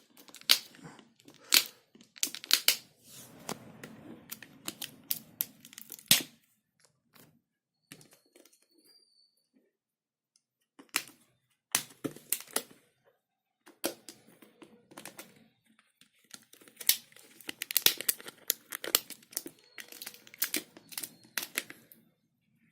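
Plastic seal wrapping on a whey protein tub being torn and crinkled by hand: clusters of sharp crackles and clicks, with a quiet pause of a few seconds about a third of the way through.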